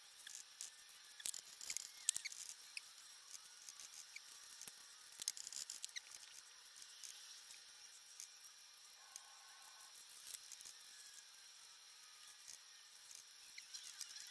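Faint, scattered clicks and taps with a few short high squeaks, heaviest about 1.5 s and again about 5 s in: the working sounds of painting, brush and palette, sped up with the time-lapse picture.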